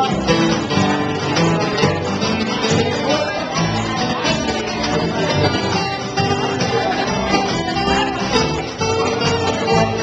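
Jug band playing live, with plucked guitar strings to the fore and a steady beat.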